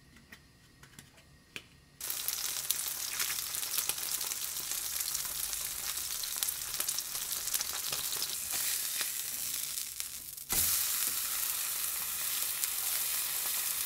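Whole flounder frying in grapeseed oil in a nonstick pan. After a couple of seconds of faint clicks, a steady sizzle starts suddenly, breaks off briefly near ten seconds with a low knock, and comes back louder.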